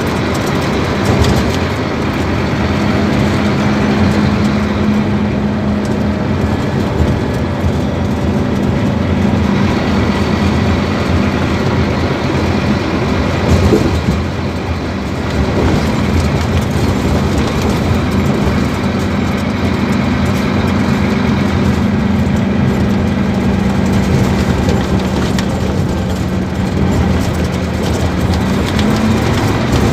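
Scania K250UB bus's diesel engine running steadily, a held low drone with road and body rattle. It eases off briefly about halfway through, and its tone rises near the end.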